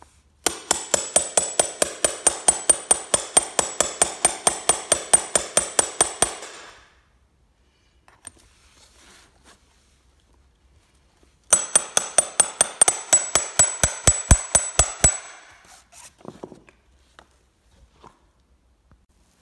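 Steel hammer striking a steel grommet-setting punch in quick, steady succession, driving a brass sail grommet together on an anvil. Each blow rings with a metallic ping. A run of about six seconds is followed, after a pause of about five seconds, by a shorter run of about three and a half seconds.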